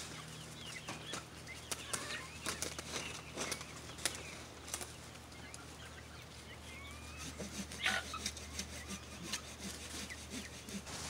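Domestic chickens clucking in a pen, with scattered clicks and rubbing from handling close by.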